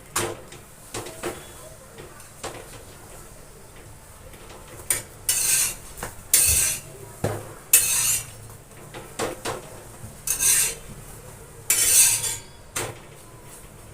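A metal utensil scraping and clinking against a griddle in about ten short, irregular strokes as flatbread is worked on it.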